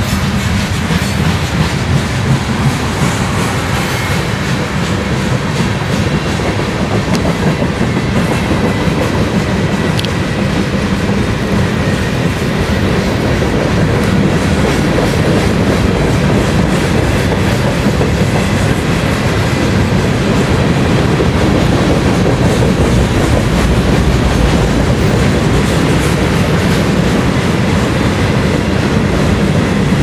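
Freight train cars rolling steadily past: the continuous rumble of steel wheels running on the rails.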